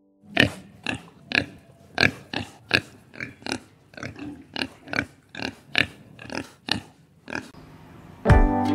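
An animal giving a long run of short, sharp calls, about two or three a second, evenly spaced; music comes in near the end.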